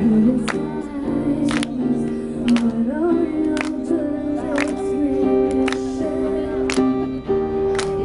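Acoustic guitar strummed with sharp strokes about once a second, under a woman's singing voice.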